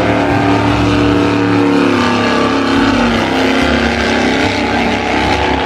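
A vehicle engine running steadily, its pitch dipping slightly about three seconds in and then recovering.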